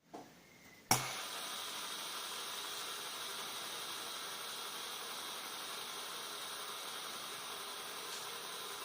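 Fidget spinner flicked into a spin with a click about a second in, then its ball bearing whirring steadily.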